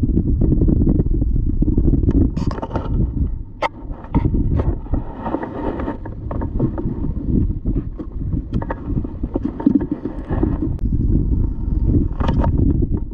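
Wind buffeting the microphone on a kayak on open water, a steady low rumble, with water lapping and splashing against the hull in short bursts.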